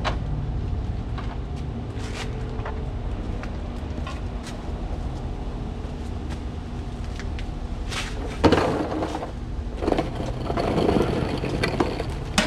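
Car parts and hand tools being handled during an under-car install: a few light clicks, then a louder scraping rustle about two-thirds of the way in and a longer one near the end, over a steady low rumble.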